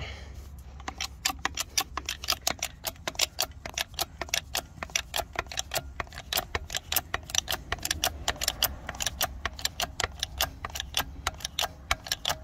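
Hydraulic bottle jack being pumped by its handle, giving a fast, uneven run of sharp metallic clicks, several a second, as it presses a new carrier bearing onto a differential carrier. A low steady hum runs underneath.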